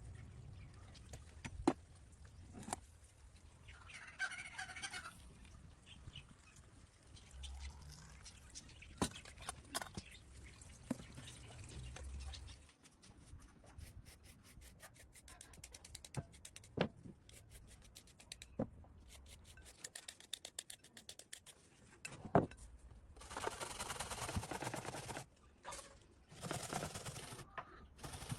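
A domestic fowl calls briefly, among scattered sharp knocks and clicks, with a run of rapid ticking midway and a stretch of rushing noise near the end.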